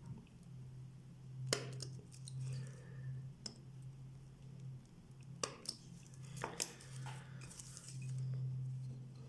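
Sharp small clicks and clinks of metal watchmaker's tools working at the hour hand of a Vostok Amphibian wristwatch. The clicks come about six times, irregularly spaced, over a low steady hum.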